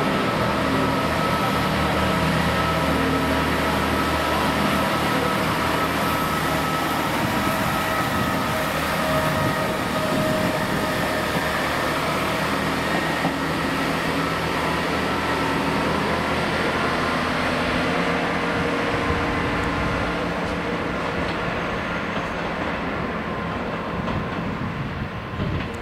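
Northern class 158 diesel multiple unit running, a steady drone of several held pitches over a rumble. The sound fades over the last several seconds as the unit departs.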